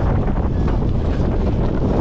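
Heavy wind buffeting the microphone in the open back of a moving ute, over a steady low rumble from the vehicle's engine and tyres on the road.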